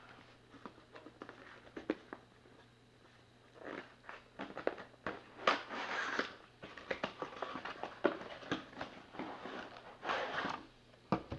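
A hard drive's packaging being opened by hand: irregular rustling and crinkling with scattered clicks and taps, quiet at first and busier from about three seconds in.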